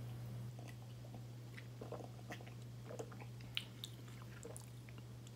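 Faint mouth sounds of a man sipping cola from a glass and tasting it: small lip and tongue clicks and swallows, scattered irregularly, over a steady low hum.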